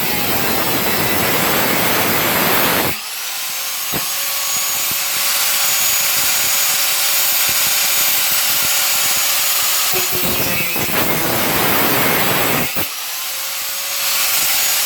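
Angle grinder cutting into a panel with a loud, harsh grinding noise. Twice, about three seconds in and near the end, the load comes off and the grinder's whine rises and settles into a steadier, higher note before it bites in again.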